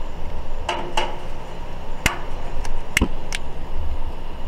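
About six sharp clicks and light knocks at uneven intervals, from handling a propane-fed two-burner camp stove and a long-nosed utility lighter at its burner.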